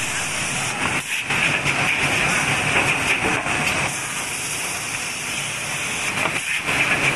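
Conveyor belts and an automatic rigid-box pressing machine running: a steady mechanical hiss and rumble that dips briefly about a second in and again near the end.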